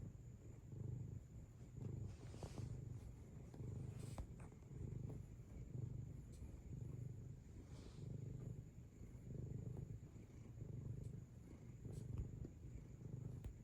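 Domestic cat purring steadily while kneading, a low rumble that swells and fades about once a second with each breath in and out.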